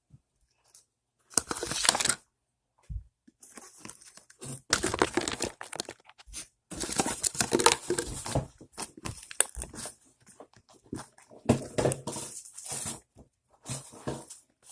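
Butter slime being squished and stretched by hand for ASMR, in irregular bursts of sticky, crinkly squishing with short pauses between them.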